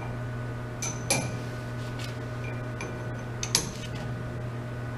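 Hand wrenches clinking against the steel grips of a torsion testing machine as the specimen is tightened: a few sharp metallic clinks about a second in and again past three seconds, over the steady low hum of the machine, which is switched on.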